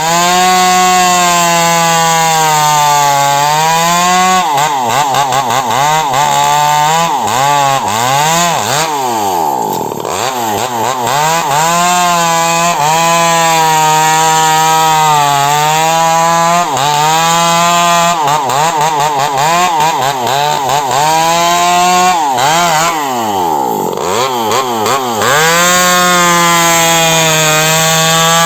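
A power tool running steadily while working wood. Its motor holds a fairly constant pitch that sags slightly now and then, as if under load.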